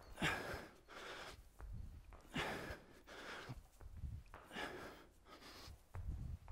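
A man breathing hard during dumbbell power cleans: short, forceful breaths in and out in quick succession, with a few light knocks.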